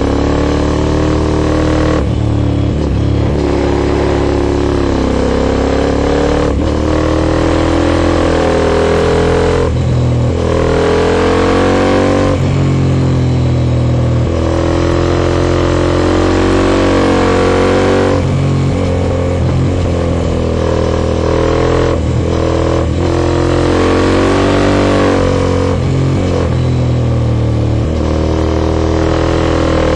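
Aprilia Shiver 750's 90-degree V-twin through a full Arrow Dark Thunder aluminium exhaust, accelerating and shifting up again and again, its revs climbing then dropping at each gear change. It is ridden a gear too high, so the engine pulls from fairly low revs.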